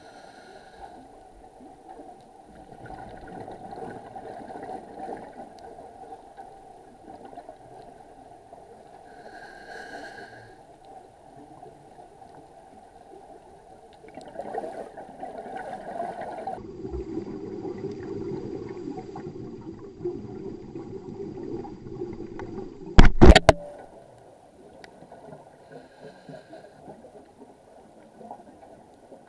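Muffled underwater noise picked up by a camera in its waterproof housing. Late on comes a brief burst of loud, sharp knocks on the housing as a shark strikes the camera.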